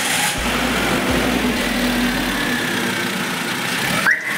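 Maruti Suzuki Alto's three-cylinder petrol engine idling steadily, running after its clutch plate has been replaced.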